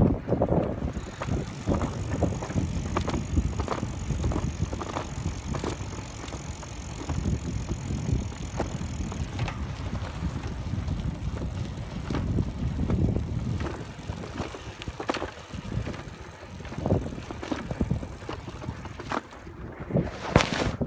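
Bicycle towing a dog trailer along a path, with wind rumbling on the phone's microphone and scattered clicks and knocks from the bike and trailer.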